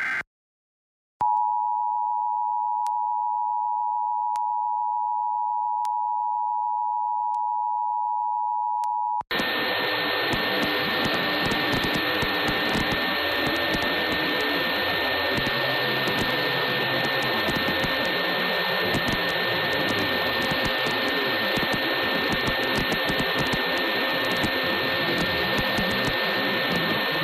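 Emergency Alert System attention signal: a steady two-note alarm tone held for about eight seconds. It stops abruptly and gives way to loud, steady static hiss.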